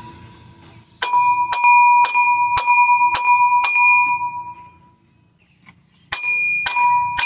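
Hammer taps on a seized water pump pulley, six strikes about two a second and then, after a short pause, three more near the end. Each strike leaves a ringing metallic tone. The pulley is being knocked loose after soaking in penetrating oil.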